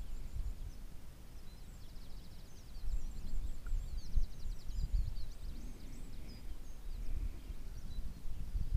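Wind gusting against the microphone in low rumbles, with a small bird singing a quick run of high, trilling notes from about a second in until about five seconds in.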